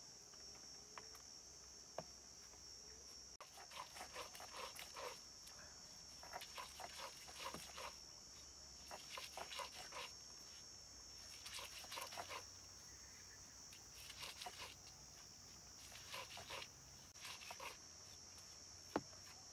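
Stone-on-stone grinding: grated coconut is rubbed and crushed on a flat grinding stone in short bursts of quick back-and-forth strokes, with pauses between bursts and a sharp click near the end.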